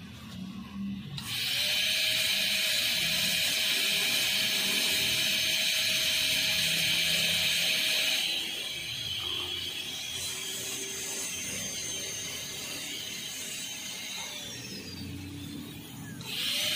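High-speed dental handpiece (air-turbine drill) starting about a second in and whining steadily as a bur cuts a plastic typodont tooth, widening the dovetail of a class II cavity preparation. It gets quieter about halfway through, and near the end its pitch falls as it spins down and stops.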